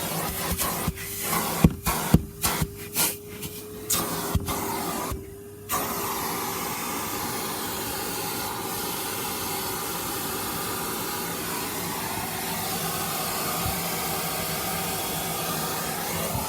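Vacuum cleaner running with a steady whine, while a run of sharp clicks and knocks sounds over it during the first few seconds as the car interior is vacuumed. After a brief dip about five seconds in, it settles into a steady suction hiss.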